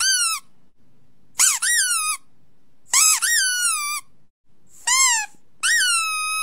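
A series of five high-pitched squeaks, each rising then falling in pitch. The last is held longest, about a second and a half.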